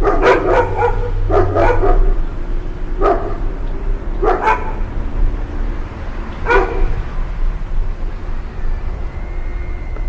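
A dog barking: quick runs of barks in the first two seconds, then a single bark, a pair, and a last bark about six and a half seconds in, over a steady low rumble.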